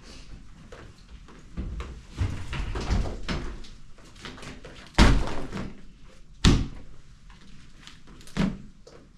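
Knocks and shuffling, then two loud bangs about a second and a half apart and a lighter thud near the end: household junk and debris being handled and dropped during a room clean-out.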